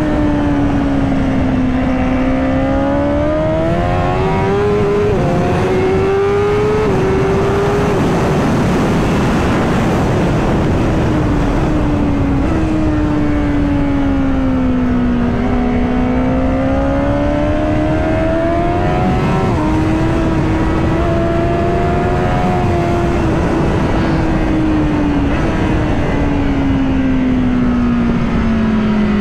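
Honda Fireblade's inline-four engine at track speed, heard from onboard: its pitch climbs and falls slowly as the bike accelerates and slows through corners, with a couple of sudden pitch steps from gear changes about five and seven seconds in, under constant wind rush.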